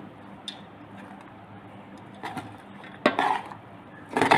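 A metal spoon scraping and knocking against a pot while cooked rice is fluffed and turned. There are a few separate knocks, the sharpest just after three seconds and the loudest near the end, over a low steady hum.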